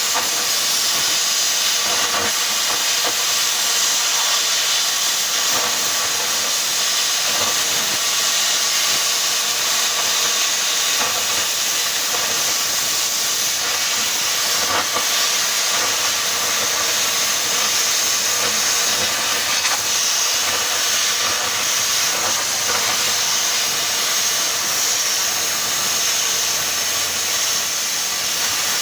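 A loud, steady hiss that runs without a break, mostly in the upper range, with no clear pitch.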